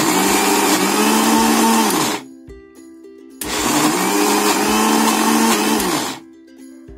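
Electric mixer grinder grinding soaked moong dal into a coarse paste, run in two pulses. The first run stops about two seconds in and the second starts about a second later and runs for nearly three seconds, its motor whine rising as it spins up and falling as it stops.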